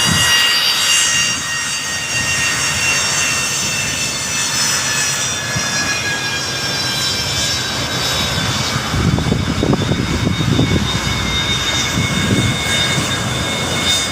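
Airplane turbine engines running loud, a high whine of several tones drifting slowly down in pitch, with a rougher low rumble swelling in from about nine seconds in.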